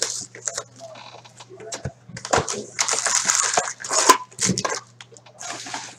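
Foil wrapper of an Upper Deck Trilogy hockey card pack crinkling and tearing as it is ripped open by hand, with the densest tearing from about two to four seconds in and shorter crinkles after.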